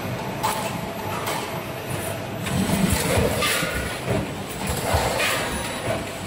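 Vertical form-fill-seal packing machine running, a steady mechanical clatter with repeated short clacks from its moving parts.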